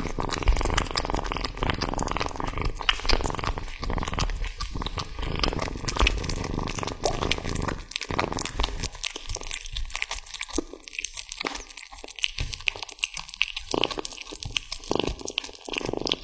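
Kitten chewing and tearing at a raw tomahawk steak: a dense run of wet crunching and smacking clicks. It is busiest in the first half and sparser after about eight seconds.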